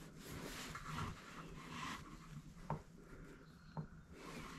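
Quiet outdoor range ambience with faint rustling and two soft clicks, about two-thirds and four-fifths of the way through.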